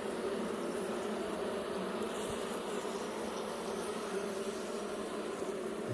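Large honey bee colony buzzing steadily, a dense hum from the mass of bees on the exposed comb of an opened hive.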